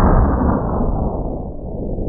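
Thunder rolling on after a clap: a loud, deep rumble whose brighter top dulls steadily, leaving a low roll.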